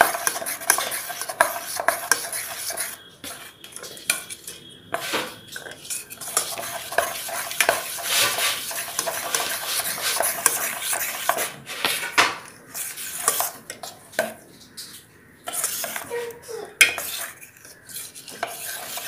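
A spoon stirring thick semolina cake batter in a stainless steel bowl, scraping and clinking against the metal sides in an uneven rhythm, with a couple of brief pauses. The batter is being stirred to work out the lumps.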